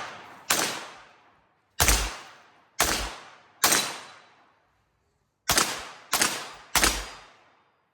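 Pistol fired seven times, each shot sharp with a fading echo: four shots about a second apart, then after a short pause three quicker ones.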